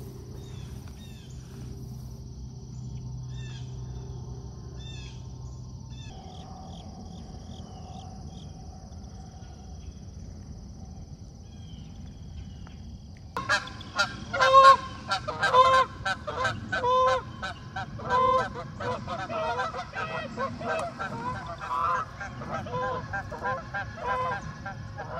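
Faint chirps of small birds over a steady high tone, then about halfway through a flock of geese starts honking loudly, many calls overlapping, a couple a second.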